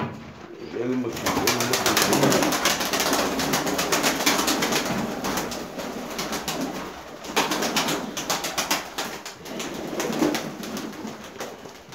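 Domestic tumbler pigeons in a small loft: wings clattering in rapid flaps as birds take off and land, with some cooing. The clatter starts about a second in and is densest in the first half.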